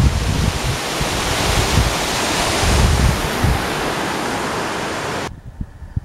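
Small waterfall rushing, with wind buffeting the microphone in low thumps. The rushing cuts off suddenly about five seconds in, leaving only fainter wind on the microphone.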